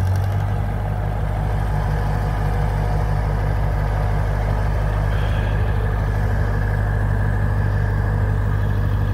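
Massey Ferguson TO35 tractor engine running steadily at low revs as the tractor drives slowly over packed snow, a loud, even drone.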